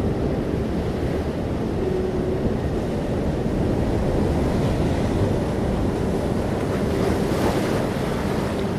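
Steady rush of wind and sea surf along a rocky coast, swelling and brightening about seven seconds in as a wave breaks.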